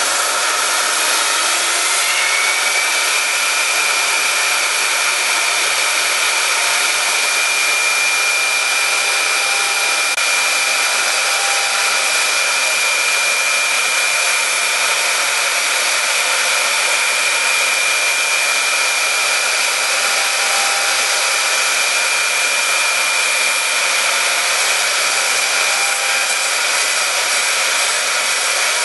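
A robot-held high-speed router spindle milling a foam block: a steady, loud whine mixed with the hiss of the cutting. The whine rises in pitch over the first few seconds as the spindle speeds up, then holds steady.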